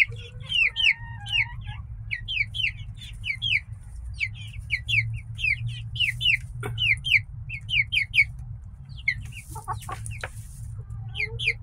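A flock of nearly grown young chickens peeping and chirping around the coop, many short, high falling notes several times a second, over a steady low hum. A few soft clicks come about ten seconds in.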